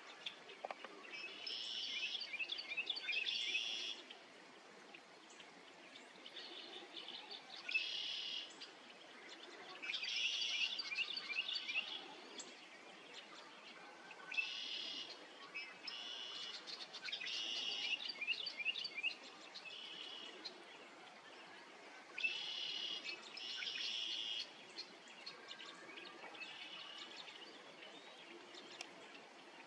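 Bird song: short, high, trilled phrases repeated every two to three seconds, over a faint steady background hiss.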